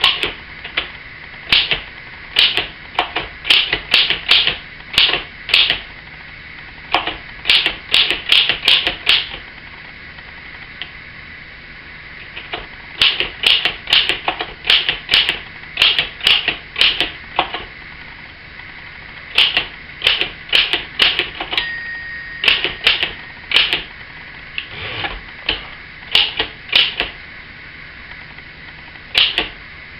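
1913 Oliver No. 5 typewriter being typed on slowly: uneven runs of sharp type-bar strikes broken by pauses, as the typist hunts on the three-bank keyboard. A brief ringing tone sounds about two-thirds of the way through.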